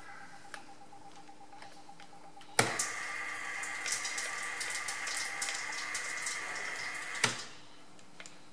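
Milling machine motor running with a steady whine over a hiss for about four and a half seconds, switched on with a sharp clunk a few seconds in and cut off with another clunk near the end.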